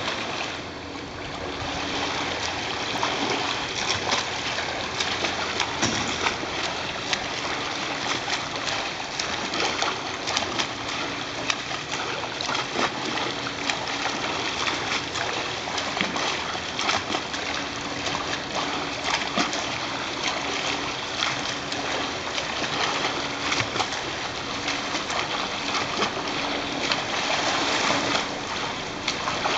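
Steady splashing of a swimmer's arms and legs churning the water in a pool lane.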